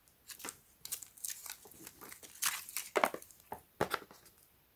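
Handling noise from a plastic spool of LED light strip and its packaging: a string of light rustles, crinkles and clicks, with sharper clicks about two and a half, three and nearly four seconds in.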